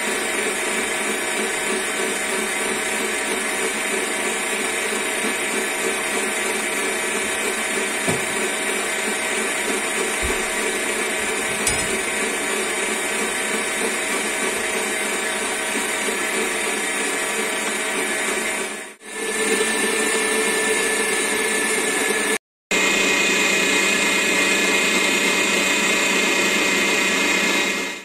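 Electric stand mixer running steadily at speed, its whisk beating whipping cream in a stainless steel bowl: a continuous motor whine with several steady tones. The sound dips briefly about two-thirds of the way in and cuts out for a moment a few seconds later.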